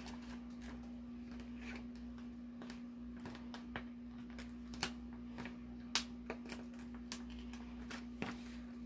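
Quiet room with a steady low electrical hum and a few short, light clicks and taps scattered through it, the clearest about five, six and eight seconds in.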